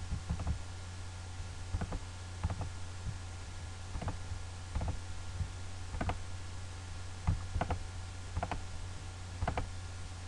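Computer mouse and keyboard clicks, about a dozen at irregular intervals, over a steady low electrical hum.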